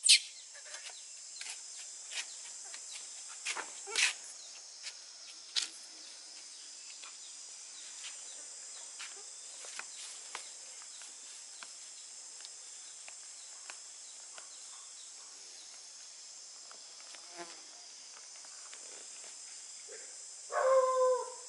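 A steady, high-pitched chorus of insects trilling in the vegetation, with a sharp knock at the start and a few fainter clicks. Near the end comes a short pitched call.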